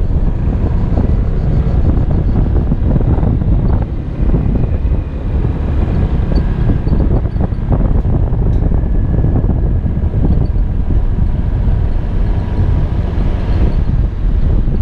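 Wind buffeting on the microphone of a Kymco Xciting 250i maxi-scooter under way, with the scooter's engine running steadily underneath.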